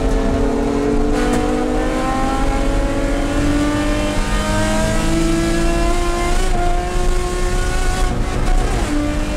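Porsche 997 race car's flat-six engine heard from inside the cockpit under full throttle in second gear, its pitch climbing steadily as the revs rise, then dropping sharply near the end with an upshift to third.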